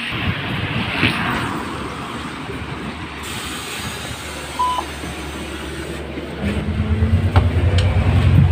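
A double-decker bus arriving and boarding: street and tyre noise, a short electronic beep from the ticket reader about halfway through, then the bus's engine running louder as it pulls away, heard from inside the bus.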